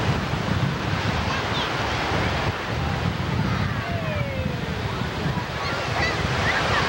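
Small waves washing in over the shallows, a steady wash of surf, with wind rumbling on the camcorder microphone.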